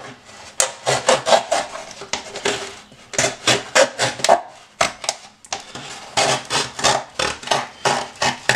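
A small knife sawing around the wall of a disposable drink cup: a steady run of short, scratchy back-and-forth strokes, a few a second.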